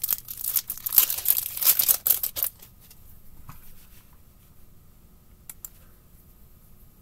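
Hockey card pack wrapper being torn open, crackling and crinkling for about two and a half seconds, followed by a few faint clicks as the cards are handled.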